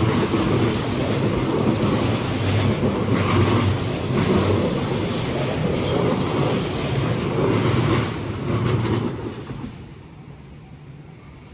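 Freight wagons of an EF210-hauled freight train rolling past, wheels clacking over rail joints in a steady rumble with a knock every second or two. Just after nine seconds in, the last wagon goes by and the sound falls away quickly.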